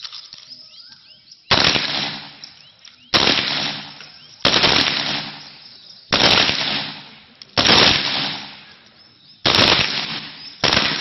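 Gunfire from a line of submachine guns on a firing range: seven loud, sharp reports or short bursts, about one every second and a half, each followed by a fading echo.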